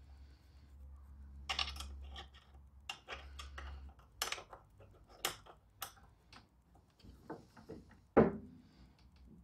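Scattered clicks and light metallic clinks as a steel striping-kit mounting bracket is handled and fitted onto a lawn mower's rear axle bolt, with one louder knock about eight seconds in.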